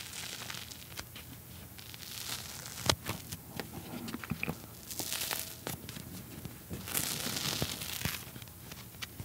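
Soft steamed Chinese flower buns (kkotppang) being pulled apart and unrolled by hand: the soft dough tears in several soft bursts, with a few small clicks and one sharper click about three seconds in.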